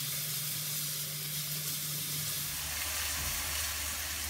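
Chopped onions sizzling steadily in hot oil with cumin, nigella, fenugreek and mustard seeds in a non-stick wok, stirred with a spatula as they soften.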